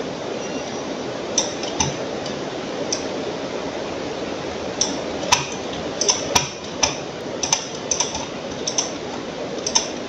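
Sharp clicks of a computer mouse, a dozen or so, scattered and then coming in quick bunches in the second half, over a steady hiss.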